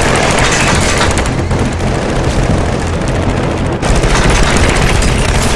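Sustained, rapid automatic gunfire, shot after shot in a dense stream, with a brief break a little before four seconds in.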